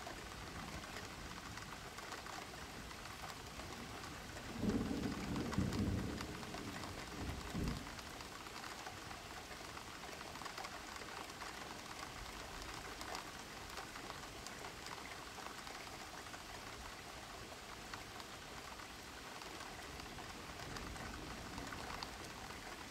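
Steady rain falling, with a low rumble about five seconds in and a shorter one near eight seconds.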